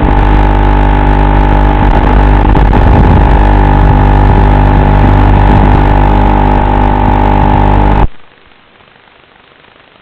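FPV quadcopter's brushless motors whining steadily under power. The sound cuts off suddenly about eight seconds in, leaving only a faint hiss.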